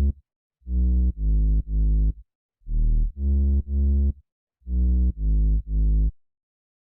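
Electronic music: a deep three-note synth bass phrase repeated about every two seconds, cutting off abruptly near the end.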